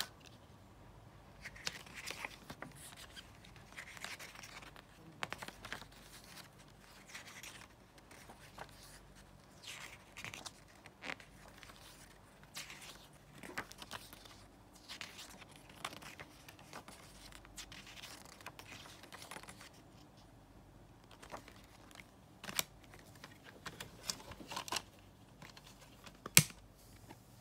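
Hands handling a CD's paper inserts and lyric booklet: rustling and pages turning, with scattered light clicks of a plastic jewel case. Near the end, a sharp click as the disc is pressed off the case's centre hub.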